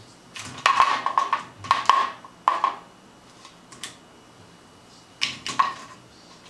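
Empty plastic soda bottle batted by a cat's paw, knocking and clattering hollowly on a wooden floor. The clatter comes in two bouts: a run of knocks from about half a second in lasting over two seconds, then a shorter burst about five seconds in.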